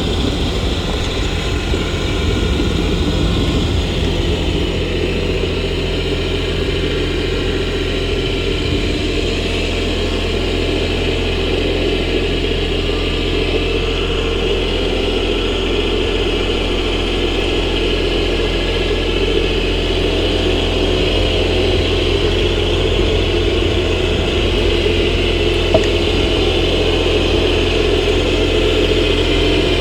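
Kioti tractor's diesel engine running steadily while it works a loader-mounted jib, with a slight rise in level toward the end.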